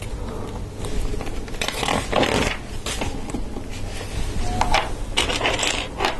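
Hard plastic LEGO Technic parts being handled and pressed together, with short scraping rattles and clicks, as friction pins with pin bushings are fitted and the small sub-assemblies are set down on the table.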